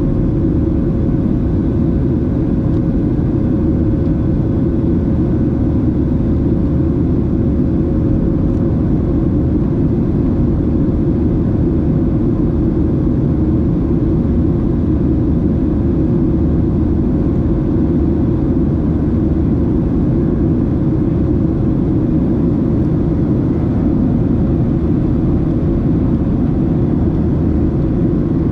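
Steady cabin drone of a Boeing 737-700 from a seat beside the wing: the CFM56-7B engines and the airflow over the fuselage make a loud, unchanging low rumble, with a faint steady hum above it.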